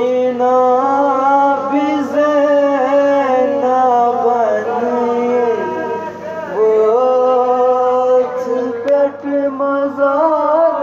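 A male voice singing a noha, a Shia mourning lament, in long held melodic lines that bend up and down, with a short break about six seconds in.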